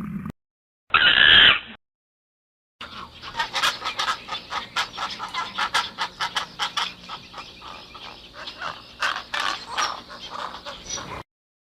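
A bird calling in a long run of rapid, clucking notes, several a second, after a short loud call about a second in.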